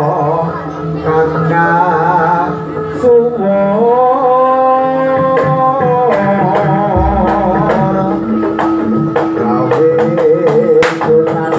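Javanese jaranan music: a sung melody with a wavering vibrato and one long held note near the middle, over drum and percussion strokes.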